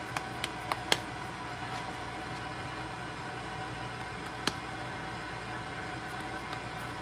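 Hands patting and pressing soft dough into a patty between the palms: a few quick light slaps in the first second and one more about four and a half seconds in. A steady machine hum runs underneath.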